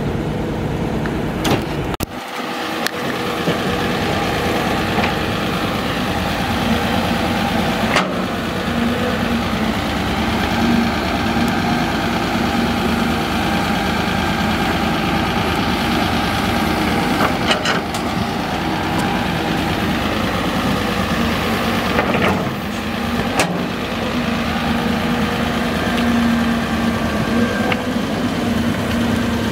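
Caterpillar 320C excavator's diesel engine running steadily with a constant hum as it digs and loads soil into a dump truck, with a few short sharp knocks along the way.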